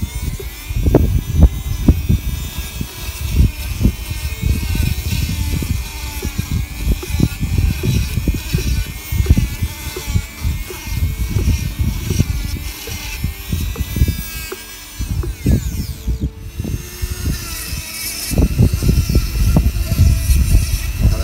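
Motorized equine dental float running with a steady, slightly wavering whine as it files a sedated horse's molars, the rasp grinding against the teeth in dense, irregular strokes. The sound drops out briefly about three-quarters of the way through, then resumes.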